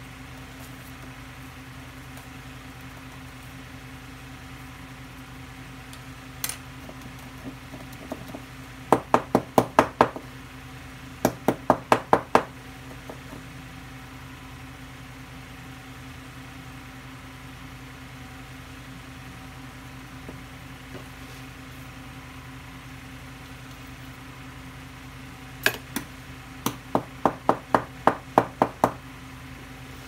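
Quick runs of sharp taps on a small terracotta plant pot, a few seconds apart in three groups, over a steady low hum. The tapping settles fresh succulent potting soil and drives out trapped air.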